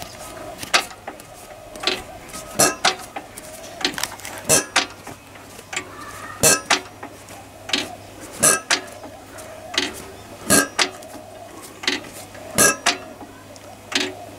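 Freshly cleaned diesel fuel injector of a Lister CS stationary engine popping as the engine is turned over by hand: sharp cracks, often two close together, about every second. Each pop is the nozzle spraying fuel, and the spray pattern is good, so the injector is fit to reuse.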